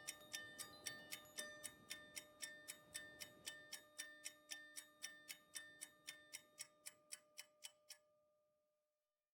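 Clock-like ticking, about four ticks a second, over faint held tones. The ticking stops about eight seconds in and the tones fade away.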